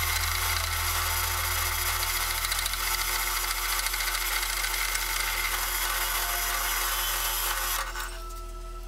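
Drill press cutting through quarter-inch aluminium plate with a step drill bit: a loud, steady cutting noise. About eight seconds in the cutting stops abruptly and a quieter steady running sound remains.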